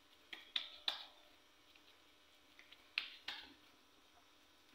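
Hands patting and pressing minced chicken mixture into a thick patty: a few faint, short, wet pats, three in the first second and two more about three seconds in.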